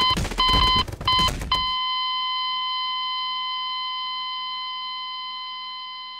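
Electronic alarm clock beeping: short evenly spaced beeps about 0.7 s apart over a rough noise, then one held beep tone that slowly fades out.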